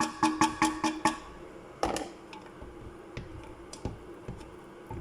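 A metal utensil knocks rapidly against a cooking pot, about six ringing taps in just over a second. One heavier knock follows, then a few light clinks.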